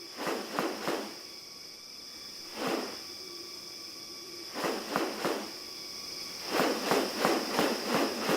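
Steady high-pitched insect drone of tropical rainforest, with short rustling bursts in small clusters that come faster, two or three a second, over the last two seconds.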